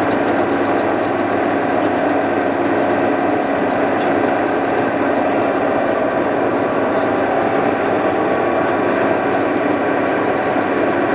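1988 Defum KNA 110/135 vertical turret lathe running with its table spinning fast: a steady mechanical drive noise with several steady whining gear tones, unchanging in level throughout.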